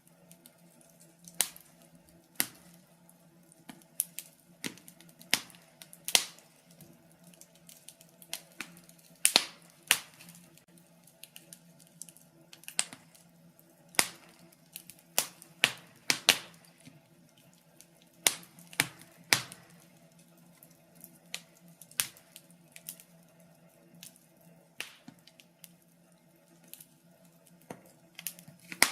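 Wood fire crackling, with irregular sharp pops and snaps of varying loudness over a faint steady low hum.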